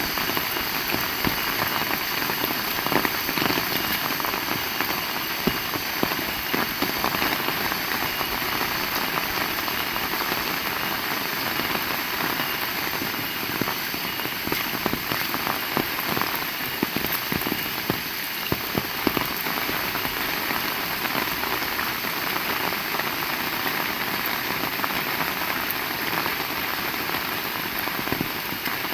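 Heavy rain falling steadily, a dense even hiss of rain with many close, sharp drop ticks throughout.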